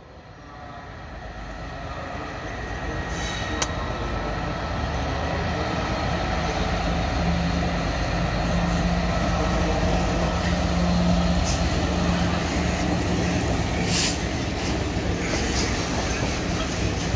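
Two GBRF Class 66 diesel-electric locomotives, each with a two-stroke V12 engine, approach and pass with a steady low engine hum, getting louder over the first few seconds. Once the locomotives have passed, a train of empty flat wagons keeps rumbling by, with a few sharp clanks from the wheels and rail joints.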